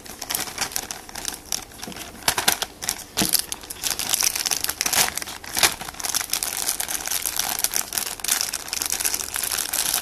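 Clear plastic bag crinkling and rustling in irregular bursts as hands handle a squishy toy inside it.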